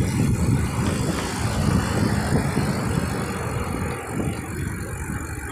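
Low, uneven rumble of wind and road noise while riding a bicycle, heard on a handlebar-mounted phone; it eases off somewhat about four seconds in.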